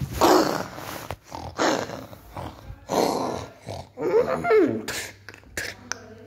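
Growls and roars made for toy animals fighting: several rough, breathy growls, then a pitched, wavering roar about four seconds in.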